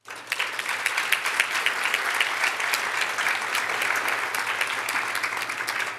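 Audience applauding: dense clapping that starts at once and thins out near the end.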